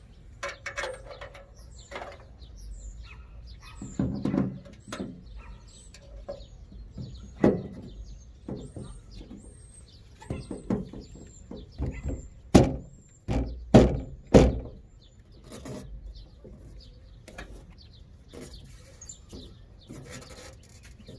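Knocks, clicks and clunks of a tail light assembly being handled and pressed into place on the car body, with three sharp knocks a little past halfway. Small birds chirp in the background.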